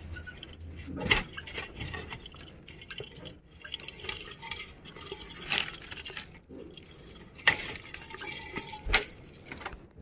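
Wire mesh of a budgie cage rattling and clinking as it is handled, with a few sharp metallic knocks scattered through it.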